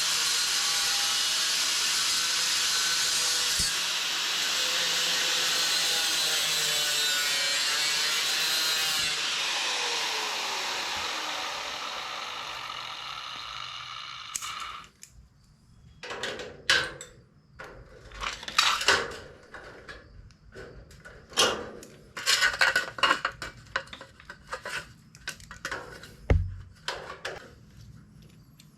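A power saw runs steadily for several seconds, then winds down with a falling whine. After it comes a string of short, irregular scraping and knocking sounds of work on wood with hand tools.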